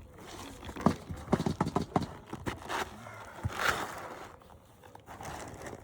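A string of sharp, irregular knocks and cracks as brittle GAF Natural Shadow asphalt shingles are pried up and pulled loose, with a couple of short scrapes. The shingles break apart as they are lifted, a sign that they are too damaged to repair.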